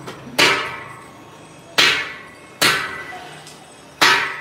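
Four sharp metallic clangs at uneven intervals, each ringing out briefly, like hammer blows on steel.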